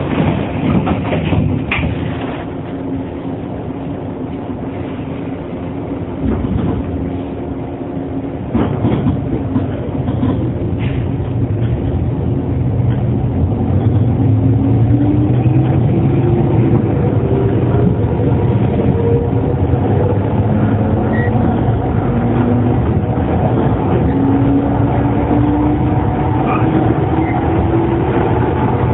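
JR 115 series EMU motor car running: the traction motor and gear whine rises steadily in pitch as the train picks up speed, over the rumble of wheels on rail. A few sharp clicks come in the first seconds.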